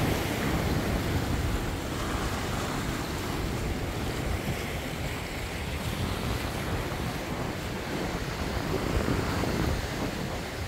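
Sea surf washing against a rocky shore, a steady rushing noise, with wind buffeting the microphone.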